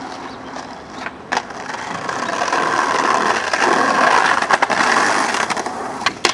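Skateboard rolling, its wheels rumbling over paving, with sharp clacks of the board snapping and landing about a second in and midway, and a cluster of clacks near the end.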